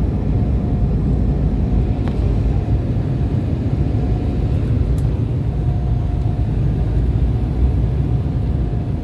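Airliner cabin noise on final approach: the jet engines and rushing air make a steady low rumble, with a faint thin tone that comes and goes.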